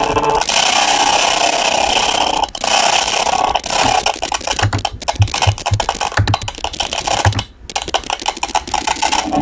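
Harsh, noisy synthetic sound played out of a Simulink multi-effects processor, with delay and tremolo gain raised. It runs steadily at first, then about three and a half seconds in breaks into rapid choppy pulses, with a brief drop near the end.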